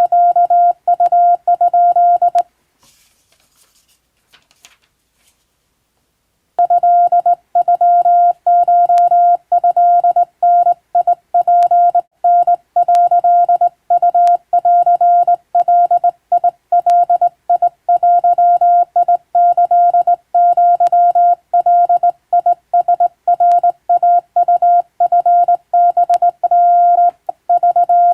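Hand-keyed Japanese wabun Morse code: a steady tone of about 700 Hz switched on and off in dots and dashes. It breaks off for about four seconds a couple of seconds in, then resumes.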